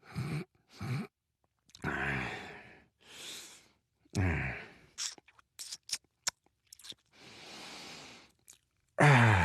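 A man's 'dad noises': groans that fall in pitch, breathy sighs and a long exhale, with a run of short clicks or smacks in the middle, and a louder groan starting near the end.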